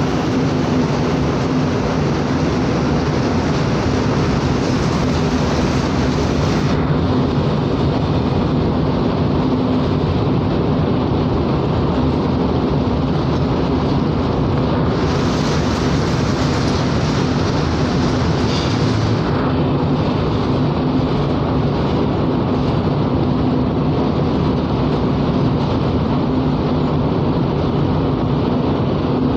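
Steady low drone of a cargo ship's engines and machinery, with a constant hum of a few low tones under a dense rushing noise. The higher hiss thins out about seven seconds in and comes back briefly in the middle.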